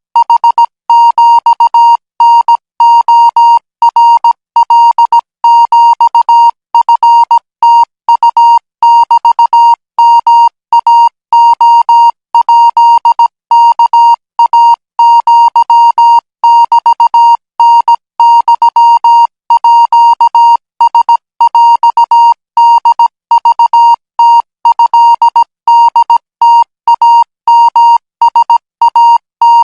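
Thai Morse code practice signal: a single high beeping tone keyed on and off in dots and dashes at 20 words per minute, without pause.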